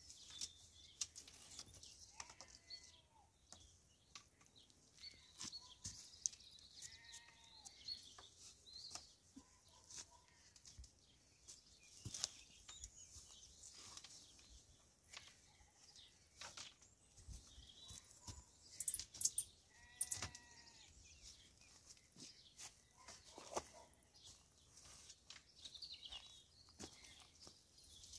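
Willow rods rustling and clicking against the stakes as they are woven into a wattle fence, in scattered short bursts. A few short arching animal calls sound in the background, the loudest near the middle.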